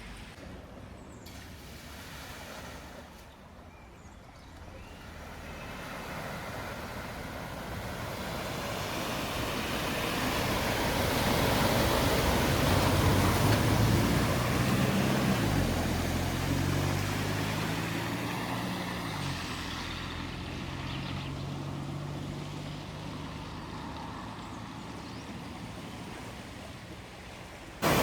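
A vehicle driving through floodwater: a rush of water spray swells to a peak about halfway through and then fades, while the engine note drops in pitch as the vehicle passes and then runs steadily.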